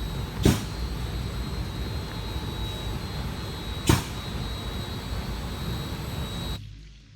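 Cefla Prima reciprocating spray machine running steadily with a mechanical hum and a thin high whine, broken twice by a short whooshing burst about three and a half seconds apart. The machine noise cuts off suddenly near the end.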